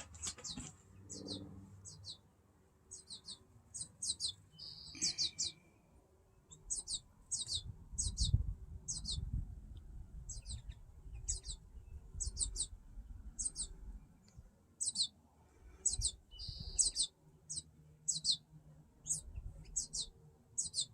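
Fledgling American goldfinch begging to be fed: short, high, falling chirps repeated about one or two a second, often in quick pairs, with a couple of harsher calls among them.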